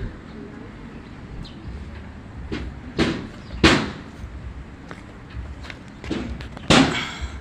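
Sharp knocks, about five at irregular intervals, the loudest near the middle and near the end, over faint background noise.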